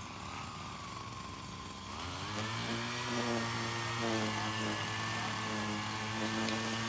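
Small gas engine of a handheld lawn edging tool, coming in about two seconds in and then running at a steady speed.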